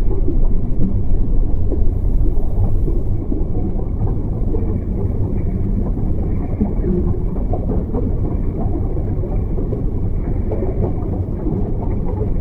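Steady, dense low rumble, muffled, with nothing above the low middle range.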